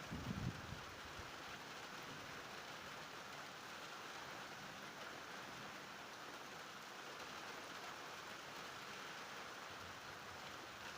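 Steady rain falling during a thunderstorm, an even hiss, with a few brief low bumps in the first half-second.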